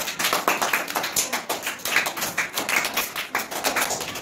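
A rapid, irregular run of sharp taps, several a second.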